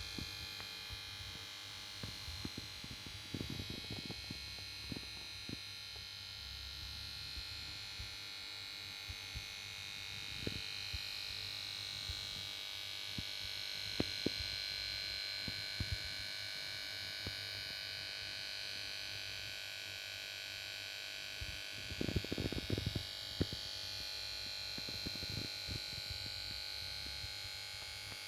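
Samsung plasma TV power board making a steady high-pitched whine over a low hum, with scattered clicks in two clusters, a few seconds in and again about two-thirds through. It is the noise of a set that goes to standby but fails to start.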